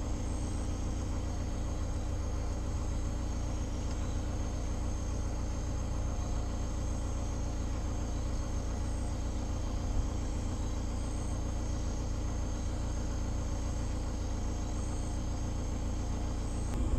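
Crickets or other insects trilling steadily at a constant high pitch over a steady low rumble.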